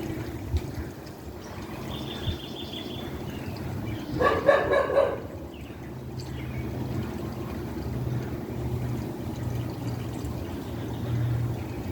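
A dog barks several times in quick succession about four seconds in, the loudest sound. A brief high bird trill comes about two seconds in, and a low steady hum runs through the second half.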